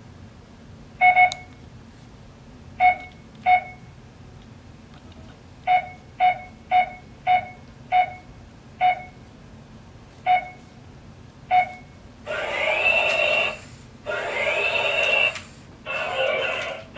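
Vimpro RC smart robot beeping once for each remote button press, about a dozen short electronic beeps at uneven spacing, as a sequence of moves is programmed in. In the last few seconds its speaker plays louder electronic sound effects with rising whoops.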